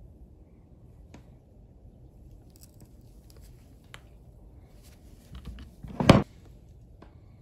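Linesman's pliers working a wire end in a circular saw's handle housing: a few faint clicks, then a short, loud knock about six seconds in as the tool comes away.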